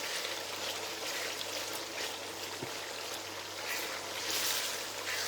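Spinach stew cooking in red oil in a pot, a steady sizzling hiss, with a faint low hum underneath.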